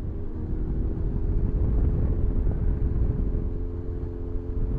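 Motorcycle running at a steady pace, heard from the pillion seat: a low road and wind rumble with a steady hum of several engine tones over it.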